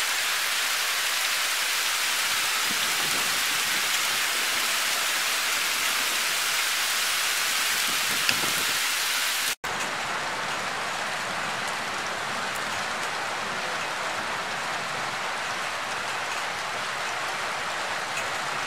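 Heavy rain pouring steadily in a thunderstorm, an even hiss. It drops out for an instant about halfway through and comes back slightly duller.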